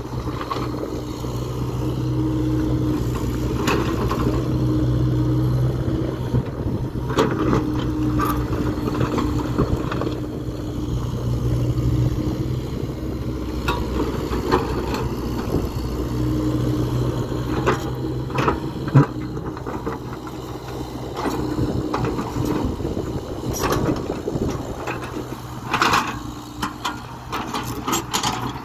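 Kobelco Acera hydraulic excavator's diesel engine and hydraulics running under load, the engine note swelling and easing as the boom and bucket work. Scattered sharp knocks and scrapes of rock against the steel bucket, the loudest about two-thirds of the way through.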